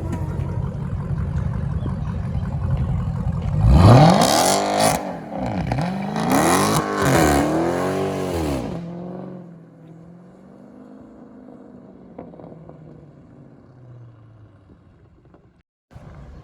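Dodge Challenger Scat Pack's 392 HEMI V8 (6.4-litre) under hard acceleration. After a low rumble, the revs surge up and down several times over about five seconds, then settle to a quiet steady run.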